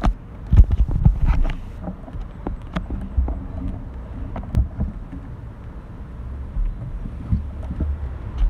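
Wind buffeting a phone's microphone outdoors, an uneven low rumble, with a few knocks and clicks from handling the phone in the first second or two.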